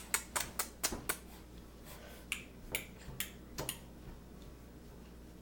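A baby making a clicking noise: a quick run of about half a dozen sharp clicks in the first second, then five or so more spaced out over the next few seconds before stopping.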